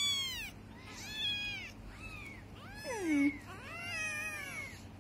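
Young kittens meowing, a string of about six thin, high-pitched mews, one in the middle sliding down in pitch.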